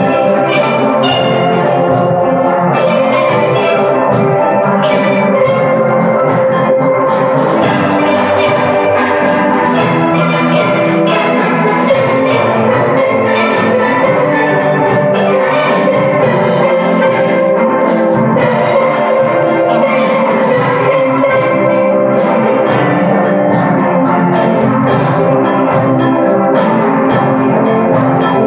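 High school steel band playing: many steel pans struck in rapid, overlapping notes, backed by a drum kit, with a steady level throughout.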